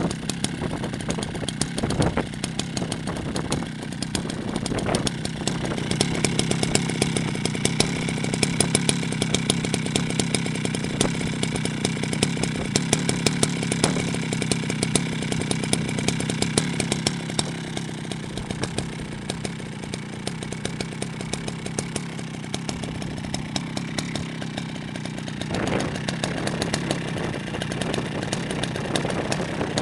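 Jonsered 70E two-stroke chainsaw engine running steadily, with a few brief rises in engine speed: about two seconds in, five seconds in, and near the end.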